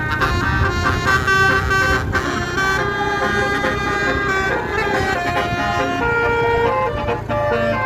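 Multi-note basuri (telolet) bus horn playing a flute-like melody, note after note, over the rumble of the bus engine.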